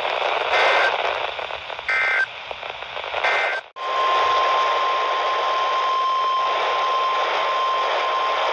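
NOAA Weather Radio static hiss with three short squawks of SAME digital alert data in the first few seconds, then, after a brief dropout, the steady single-pitch 1050 Hz warning alarm tone that signals an alert is about to be read.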